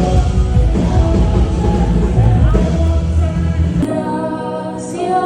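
Loud live worship band music with singing and heavy bass and drums; the bass and drums drop out about four seconds in, leaving held chords.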